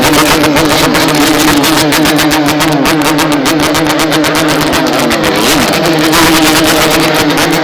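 Yamaha RX-King two-stroke motorcycle engine running loud at high revs, its exhaust giving a rasping, rapidly pulsing note. The pitch holds high and dips briefly about five and a half seconds in, then comes back up.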